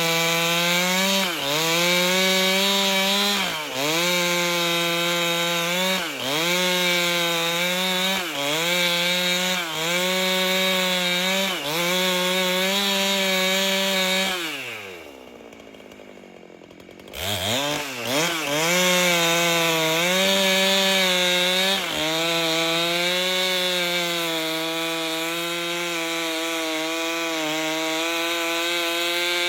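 Two-stroke chainsaw with a 30-inch bar ripping lengthwise through an albasia log at full throttle, the engine pitch sagging briefly every couple of seconds as the chain bites. About halfway through the throttle drops to idle for a couple of seconds. The saw then revs back up and cuts on steadily.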